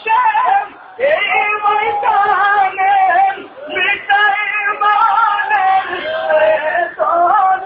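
A Bengali song: a voice sings long, wavering, drawn-out notes without clear words, in phrases about a second long, over music.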